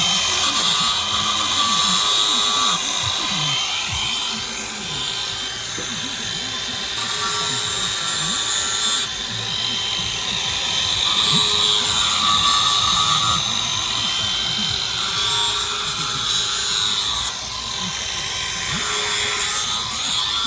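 Angle grinder running with its disc grinding the cutters of a chainsaw chain to sharpen them. The high whine shifts in level and tone every couple of seconds as the disc moves from tooth to tooth.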